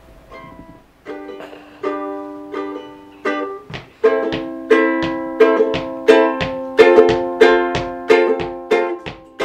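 Ukulele being strummed. A few spaced-out chords come first, then from about four seconds in a steady strum about every 0.7 seconds.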